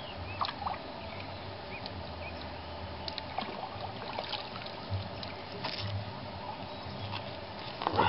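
Fish being cleaned by hand with a knife: scattered short scrapes and clicks over a steady outdoor background with an intermittent low rumble.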